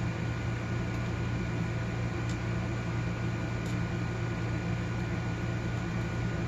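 Steady electrical hum with an even hiss, like a fan or air conditioning running, with two faint small ticks about two and three and a half seconds in.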